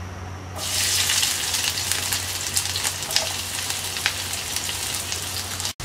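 Sliced garlic hitting hot oil with dried red chillies in a frying pan: a sudden sizzle starts about half a second in and carries on steadily with crackling pops, breaking off for an instant near the end.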